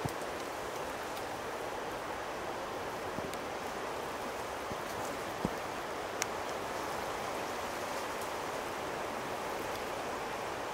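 Steady rushing of a flowing stream, with a few faint scattered clicks.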